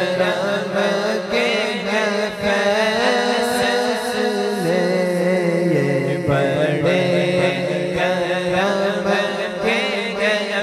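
Devotional naat vocal interlude: layered voices chanting a melody over a steady hummed drone that shifts pitch a few times.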